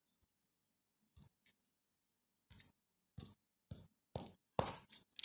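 About a second of near silence, then a run of short clicks and rustles, roughly two a second, getting louder toward the end.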